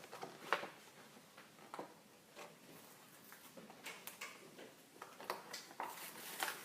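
Faint, scattered clicks and light crinkles of a Barbie clothes pack being opened by hand.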